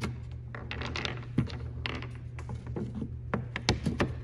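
Wooden balls of a wooden pinball board clacking and rolling as they are emptied out of the plywood scoring slots into the return channel: a string of irregular knocks and clicks, the sharpest ones in a cluster near the end.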